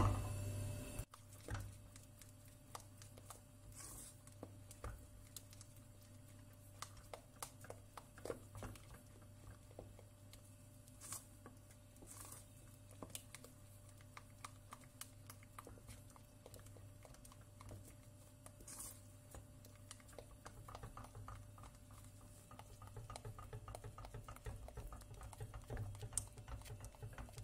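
A spatula stirring thick milk pudding in a stainless steel pot: soft scraping with many small irregular clicks and taps of the spatula against the pot, over a low steady hum.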